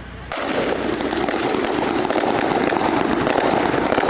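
Fireworks going off in a dense, rapid crackle of many pops. It starts suddenly about a third of a second in and keeps up steadily.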